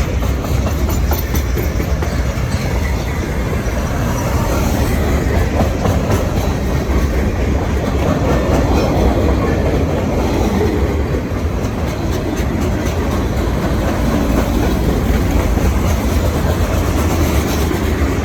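Freight cars of a long Norfolk Southern merchandise train rolling past: a steady, loud rumble with wheels clicking over the rails.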